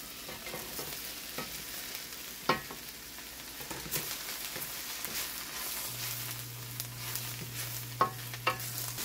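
Cabbage, bell pepper and noodle beans frying in a stainless steel wok, a steady sizzle, while they are stirred with a wooden spoon. A few sharp knocks against the wok, the loudest about two and a half seconds in.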